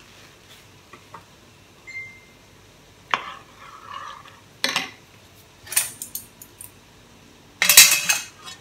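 Metal clinks and scrapes of a spoon and a wire plate gripper against a stainless steel steaming tray: a few separate knocks, the loudest and longest clatter near the end as the gripper clamps the tray's rim.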